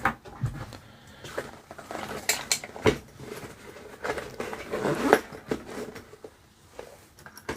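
Hands handling a small RC helicopter's battery, plug and charger lead: scattered light plastic clicks, taps and rustles, the sharpest about three seconds in.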